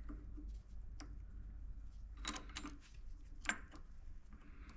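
Faint, scattered metallic clicks and taps as small parts and the cast housing of a Bosch VE diesel injection pump are handled and seated in a vise, over a low steady hum.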